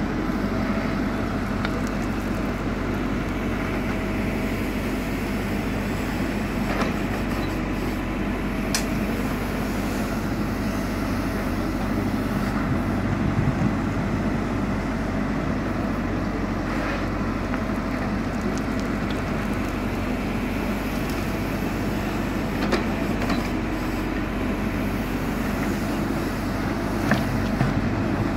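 JCB 4CX backhoe loader's four-cylinder diesel engine running steadily under working load, with a few short clanks from the bucket and arms as it digs and moves dirt.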